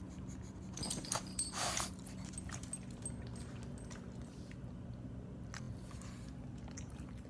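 Small dogs licking and sniffing right at the phone's microphone: soft wet clicks and smacks, with a short rustling burst about a second in.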